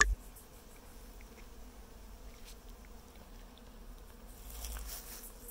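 Honeybees humming steadily from an open, crowded hive box, with a sharp click at the start as the hive tool prises a frame loose, and a brief swell of rustling handling noise about four and a half seconds in as the bee-covered frame comes up.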